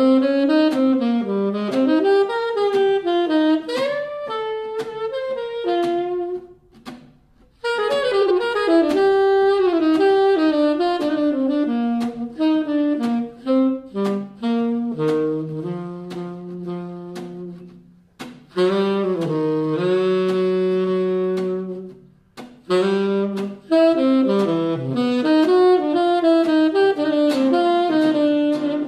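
Saxophone playing a flowing jazz line in phrases. It drops out briefly about a quarter of the way in and again about three quarters through, and holds one long low note near the middle. Acoustic guitar strums a quiet accompaniment underneath.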